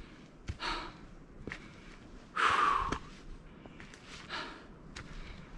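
A hiker breathing hard after climbing to a ridge: three heavy exhales, the loudest about two and a half seconds in, with light footstep ticks between them.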